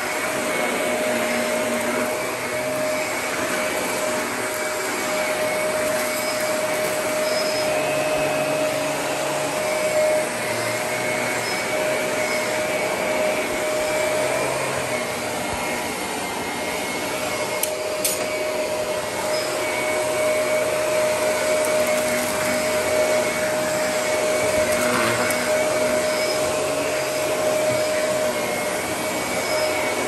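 Shark Navigator upright vacuum running steadily as it is pushed over carpet, with a steady motor whine at one pitch. It is a test run after its clog was cleared, and it runs normally.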